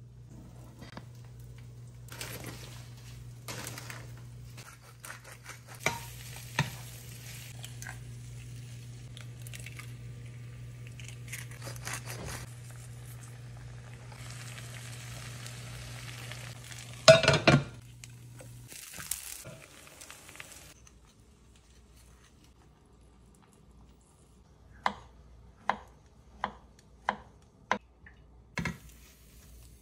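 Butter and eggs sizzling in a frying pan over a steady low hum, with a brief loud clatter of cookware about 17 seconds in. The hum stops soon after. Near the end, a knife knocks six times in a row on a wooden cutting board while slicing avocado.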